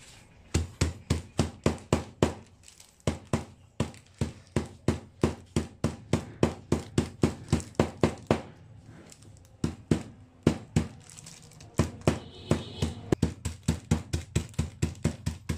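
A stone pounding a sealed pack of SkyFlakes crackers against a tabletop, crushing them to crumbs: a run of sharp knocks, about three a second, with a few short pauses.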